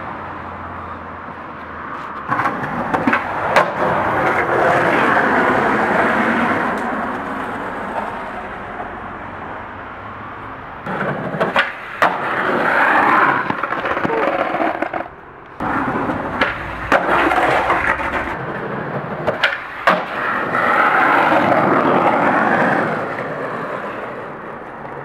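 Skateboard wheels rolling over pavement and asphalt, the rolling noise swelling and fading over several rides, with sharp clacks of the board striking the ground several times.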